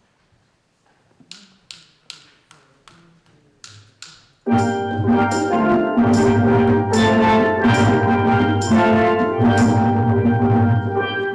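A run of quiet, evenly spaced clicks, about three a second, then about four and a half seconds in a steel drum band comes in suddenly and plays loudly, with bass pans beneath the ringing higher pans.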